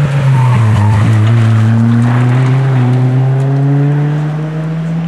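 Rally car engine at full throttle passing close by. Its pitch drops briefly about half a second in, then climbs steadily as it pulls through a gear, with tyre noise underneath, and it fades a little toward the end.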